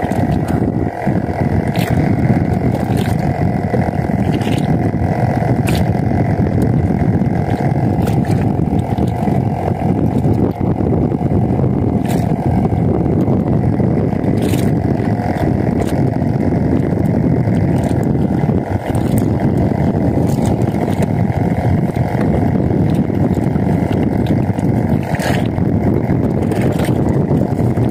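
A boat's engine running steadily, with a few faint clicks now and then.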